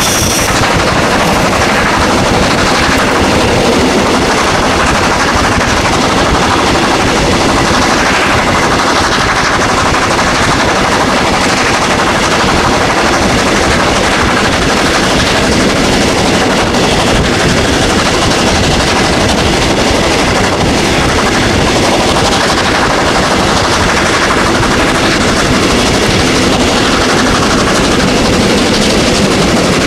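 DR class 41 steam locomotive working hard uphill, its exhaust beats coming fast and loud in a continuous rapid rhythm, heard from a coach window close behind the engine.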